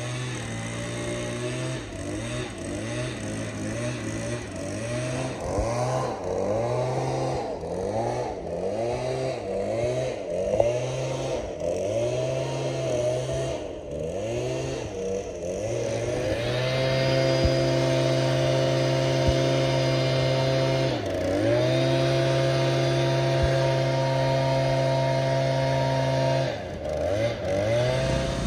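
Small petrol engine on paving-repair equipment. For the first half it revs up and down repeatedly, about once a second. It is then held at a steady high speed, dropping back briefly twice.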